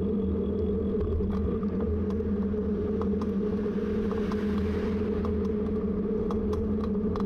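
Steady riding noise of a bicycle on the move: a constant low rumble and hum with scattered small clicks and rattles.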